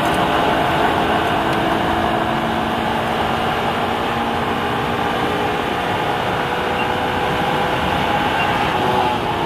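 Car engine running at a fairly steady speed, with its pitch drifting slowly and a steady rush of road and tyre noise beneath it.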